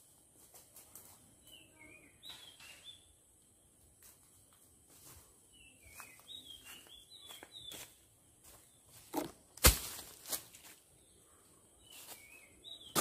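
Footsteps and rustling in dry leaf litter while a dead log is handled, with repeated short, falling bird chirps. About ten seconds in there is a loud, sharp knock of wood, followed by a smaller one.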